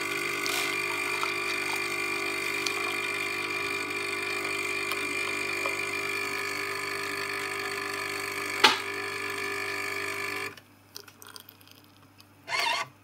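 JURA E8 automatic coffee machine running a steady, even hum as it froths and dispenses milk foam for a flat white, with a sharp click a little before it shuts off abruptly about ten and a half seconds in. A short hiss follows near the end.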